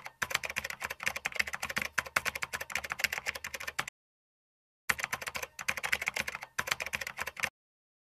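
Computer keyboard typing sound effect: a rapid run of key clicks that pauses for about a second midway, resumes, and stops shortly before the end.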